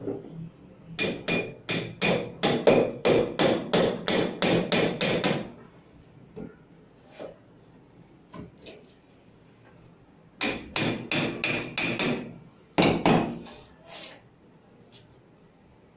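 Hammer blows struck in quick runs, about three a second, each with a short ringing tone. A long run comes first, then a pause, then a second, shorter burst of blows.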